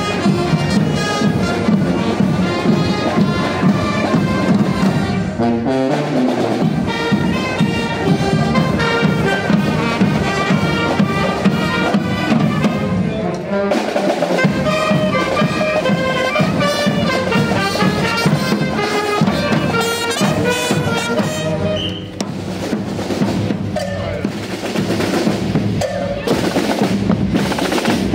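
A brass band with trumpets and snare drums playing a tune, with brief lulls about 14 and 22 seconds in.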